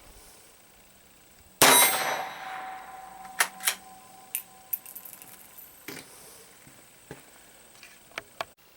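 A loud metallic clang about one and a half seconds in, ringing on for about a second, followed by a scattering of light clicks and knocks.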